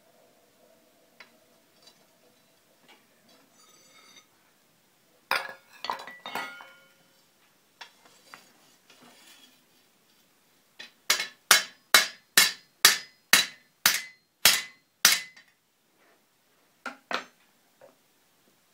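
Hand hammer striking a hot rivet on an anvil to set it, joining a forged hook to an iron back strap: a run of about ten sharp ringing blows, roughly two a second, preceded by a few clanks of metal on the anvil, with two more blows near the end.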